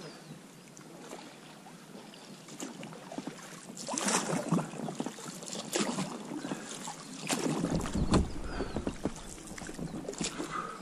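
Splashing water with scattered knocks and scrapes as a small inflatable boat moves through a shallow river riffle. The splashing grows louder about four seconds in, with a dull low thump around eight seconds.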